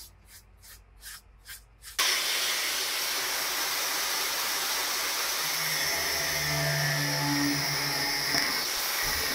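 A brush sweeps steel chips off a drilled plate in about six quick strokes. About two seconds in, an angle grinder with a thin cut-off disc starts cutting into the steel plate, a loud steady grinding noise that runs on.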